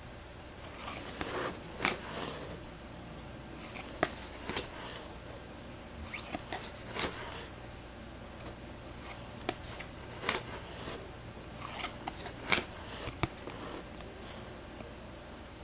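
Stack of glossy trading cards handled by hand, each card slid off the front and moved to the back: irregular soft flicks, rustles and card-edge clicks, a few every couple of seconds.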